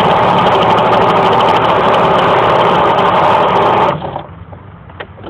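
Peugeot XP6 50cc two-stroke moped engine running at a steady, high pitch, an engine the owner says struggles to climb in revs when riding. It cuts off abruptly about four seconds in, leaving only faint clicks and knocks.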